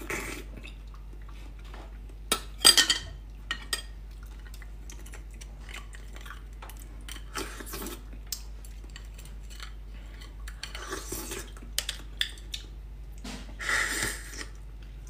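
Metal spoon clinking and scraping against braised beef marrow bones, with a cluster of sharp clinks about two and a half seconds in. Near the end comes a short wet slurp as marrow is sucked from the end of a bone.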